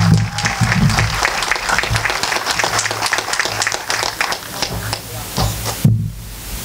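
Audience applauding, dense claps at first that thin out and stop about six seconds in.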